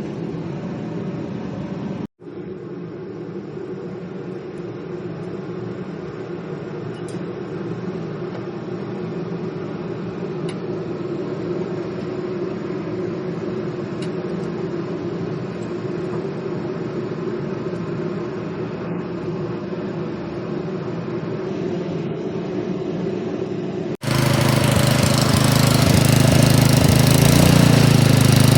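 Troy-Bilt snowblower's single-cylinder engine running steadily after its carburetor has been cleaned, a sign the no-start has been cured. The sound drops out briefly about two seconds in. Near the end it cuts abruptly to a louder, harsher engine sound.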